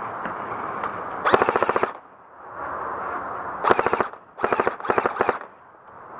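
Airsoft gun firing on full auto in four short bursts of rapid, evenly spaced shots: one about a second in, then three in quick succession near the middle.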